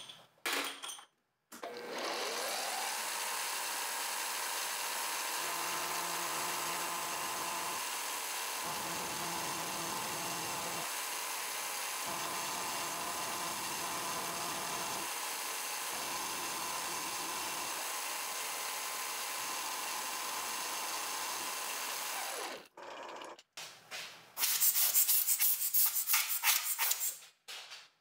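Sherline milling machine's spindle motor spinning up with a rising whine, then running steadily as the end mill cuts aluminium, and stopping about three-quarters of the way through. Near the end comes a few seconds of loud, rapid scratchy noise.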